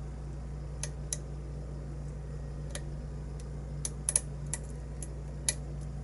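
Light, irregular metallic clicks of a lock pick and tension wrench working in the keyway of a brass euro-profile challenge lock cylinder, about a dozen in all, clustered around four seconds in. A steady low hum runs underneath.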